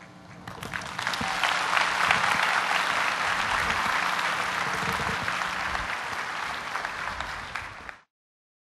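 Audience applauding at the end of a spoken-word performance, swelling up in the first second, over a faint steady low hum. The applause cuts off abruptly near the end.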